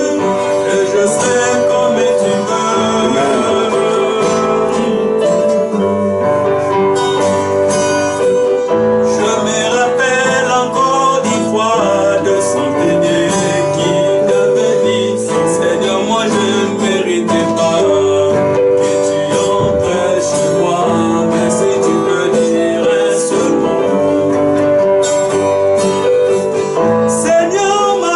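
A man singing while playing an acoustic guitar, with a keyboard accompanying.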